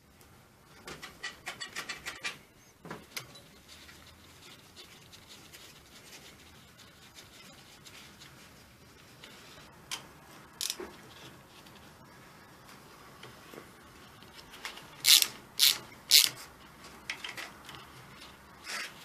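Rubbing and scraping of hand work on metal parts, with scattered light clicks, then three loud sharp knocks about half a second apart near the end.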